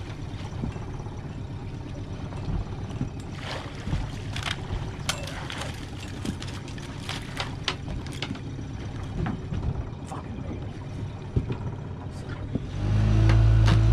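Fishing boat's engine running steadily with water and hull noise and scattered sharp clicks and knocks. A much louder, steady low drone comes in near the end.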